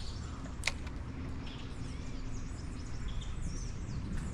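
Small birds chirping and twittering in short, scattered calls over a steady low background rumble, with one sharp click about two-thirds of a second in.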